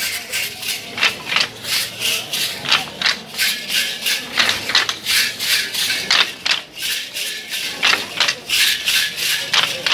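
Matachines dancers' handheld rattles shaken in time with the dance, a steady rhythmic rattling of about two or three strokes a second.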